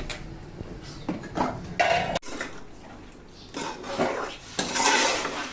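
Metal spoon clinking and scraping in a cooking pan as chicken fry is stirred, in a few separate strokes.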